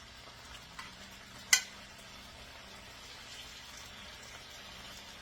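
Thin marinated pork chops sizzling steadily as they fry in hot oil in a pan. A sharp metallic clink sounds once about a second and a half in, with a fainter tap just before it.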